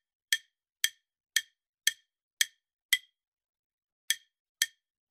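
Quiz countdown timer tick sound effect: short, sharp wood-block-like clicks about two a second, with one beat skipped about three seconds in.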